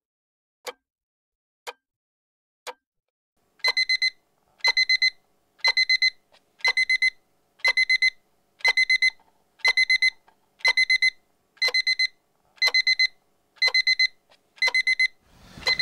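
A quartz alarm clock ticking about once a second, then going off about four seconds in: rapid high beeps in short clusters, repeating about once a second. A rustling noise starts at the very end.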